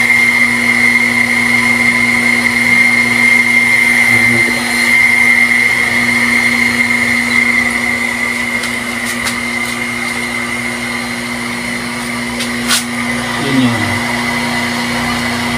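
MaxiPro electric water pump running with a steady motor hum and whine. Its suction pipe still holds air, so it is not yet drawing water in a continuous flow.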